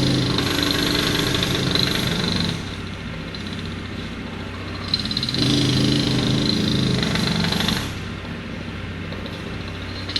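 Road-work machinery: a powered breaker or drill hammering in two bursts of about two and a half seconds, over a steady engine hum that carries on between them.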